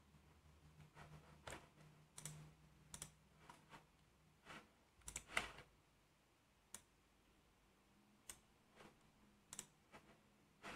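Faint, scattered clicks of a computer mouse and keyboard, about a dozen at irregular intervals, with a small cluster a little past halfway the loudest.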